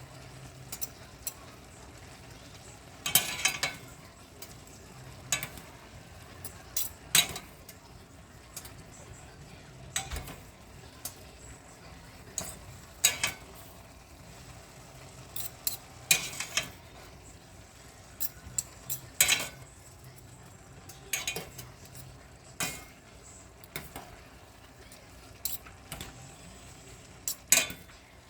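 A cooking utensil clattering and scraping against a pan in irregular strokes while pancit is stirred, over a faint steady sizzle.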